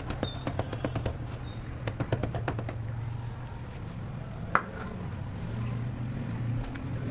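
Quick run of sharp taps on sand-cement blocks, about four or five a second for the first two and a half seconds, then one louder single tap about four and a half seconds in, over a steady low hum.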